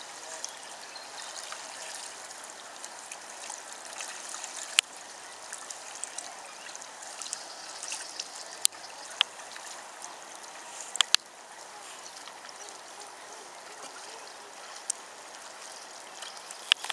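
Water trickling and splashing steadily, with a few sharp clicks scattered through.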